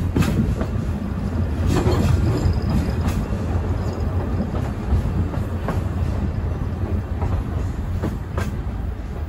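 Passenger coach wheels running on jointed track, heard through an open window: a steady low rumble with a few sharp clicks as the wheels cross rail joints.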